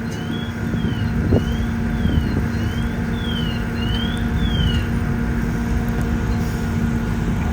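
Fire apparatus engines running steadily on the fireground, a continuous low rumble and hum. A faint siren sweeps up and down over it for the first five seconds or so.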